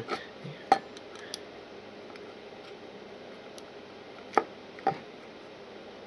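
A few sharp plastic clicks and taps from handling the opened PIR sensor's plastic housing and circuit board: one under a second in and two close together about four and a half seconds in, over faint steady hiss.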